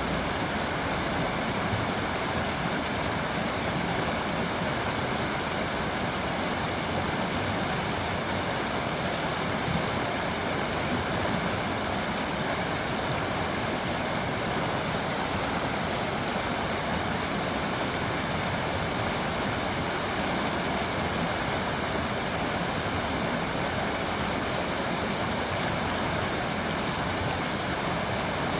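Creek water flowing steadily over stones, an even rushing babble.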